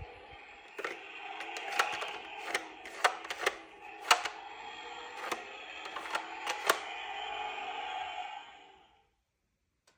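Small hard clacks of toy cars being handled and set down, about ten of them spread irregularly over several seconds, over a steady background of several held tones that fades out near the end.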